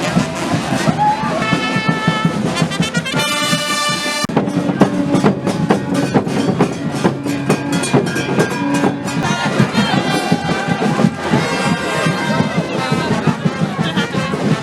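Charanga brass band playing carnival music: trumpets and trombones over drums. A held brass chord about three seconds in gives way to driving drum beats with the horns.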